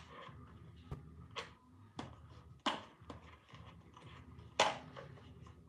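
Scattered clicks and light knocks as small parts and a tool are handled while the string trimmer's air box is unbolted. There are about five separate knocks, with the two loudest about halfway through and about three quarters of the way through.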